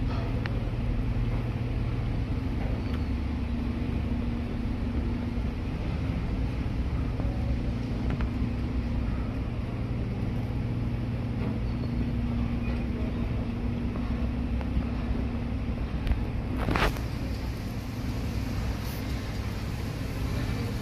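A steady, low engine drone, with a short sharp burst of noise about seventeen seconds in.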